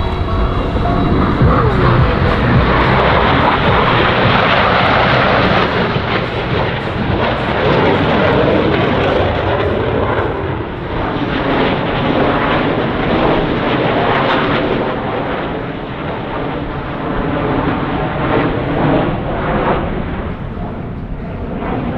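Military display aircraft flying past: a loud, steady rush of engine noise that dips briefly a few times.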